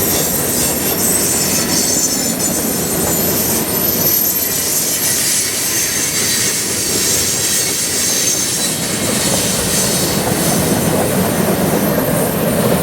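Freight cars of a long Canadian National freight train rolling past on a curve: a steady rumble and clatter of steel wheels on rail, with high-pitched wheel squeal over it.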